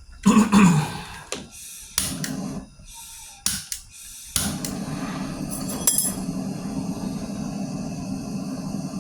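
Several sharp knocks and clinks, like tools being handled, then about four and a half seconds in a steady mechanical hum with a noisy hiss starts suddenly and keeps going.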